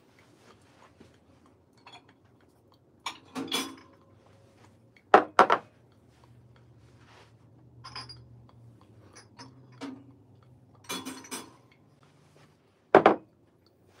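Scattered clinks and knocks of cups and pour-over brewing gear being handled and set down on a table, with a sharp double knock about five seconds in and another loud knock near the end.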